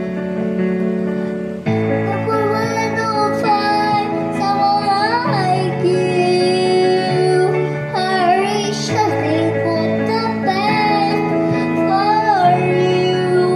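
A young girl singing a ballad melody into a microphone, accompanied by sustained chords on an electronic keyboard. The chords carry on alone for the first couple of seconds, then the voice comes in and runs over chord changes every couple of seconds.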